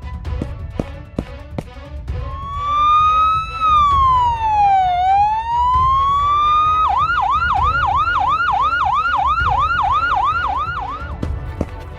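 Police siren starting about two seconds in with a slow rising-and-falling wail, switching about seven seconds in to a fast yelp, about four sweeps a second, and stopping near the end. Background music with a beat plays underneath.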